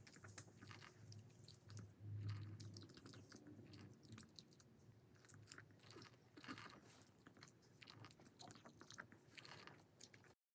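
A Maltese dog's faint, irregular mouth clicks and smacks.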